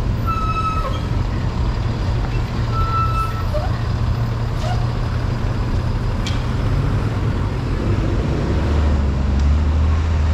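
Large vehicle's engine running in street traffic, a steady low hum that drops in pitch and grows louder about eight seconds in. Two brief high tones and a few clicks sound over it.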